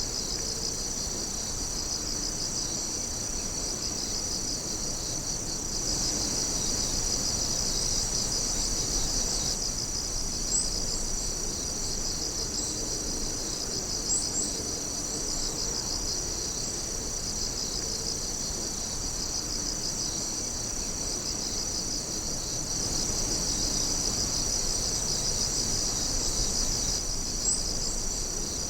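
A dense chorus of night insects calling steadily in high-pitched, rapidly pulsing trills, swelling slightly in places, with a few brief sharper chirps standing out, at about ten and fourteen seconds and again near the end.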